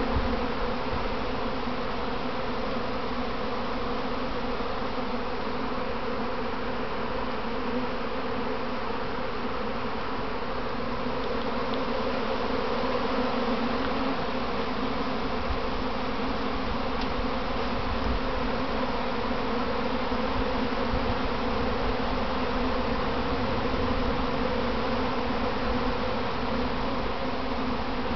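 A honeybee swarm in flight around its hive: thousands of bees buzzing together in a steady, dense hum that does not let up.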